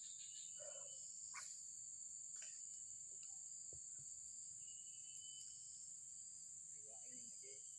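Faint, steady high-pitched chirring of insects, with a few soft clicks.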